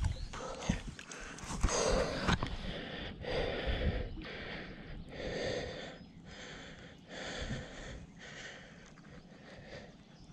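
A man breathing hard close to the microphone, a heavy breath about every second and a half, the breaths growing fainter: winded after fighting and landing a fish.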